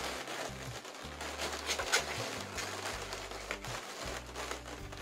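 Long latex modelling balloons rubbing and creaking against each other and the hands as they are twisted and fitted into a balloon basket, with sharper squeaks about two seconds in and again a second and a half later.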